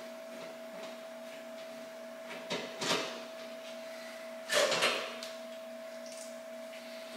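Screws being backed out of a sheet-metal breaker panel cover with a screwdriver, with two short bursts of metallic scraping and rattling, the louder one about four and a half seconds in. A steady faint hum runs underneath.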